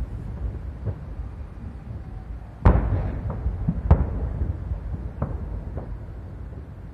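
Aerial firework shells bursting in a salute: a sharp, loud bang a little under three seconds in and another about a second later, with fainter bangs before and after, over a steady low rumble.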